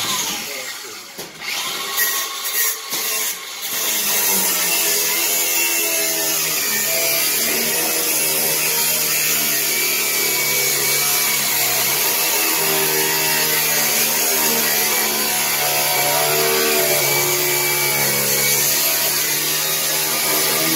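Handheld angle grinder cutting through the lock on a steel roll-up door. A few short knocks come first; from about four seconds in the grinder runs steadily under load, its pitch wavering as the wheel bites into the metal.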